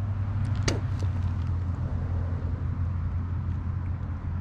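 Steady low outdoor rumble, with one faint click about two-thirds of a second in.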